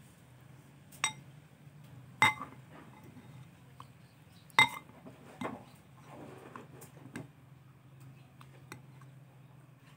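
Metal spoon clinking against a ceramic bowl as it scoops food, several sharp clinks, the loudest about two and four and a half seconds in. A faint low steady hum runs underneath.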